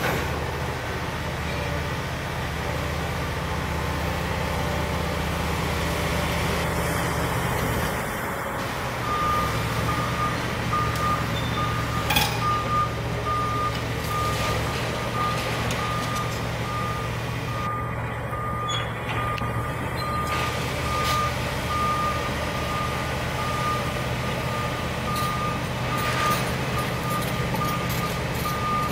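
Liebherr 974 long-reach demolition excavator's diesel engine running steadily, its note rising about a third of the way in as the machine starts to move. From then on a travel alarm beeps in a steady, even rhythm. A single sharp knock comes partway through.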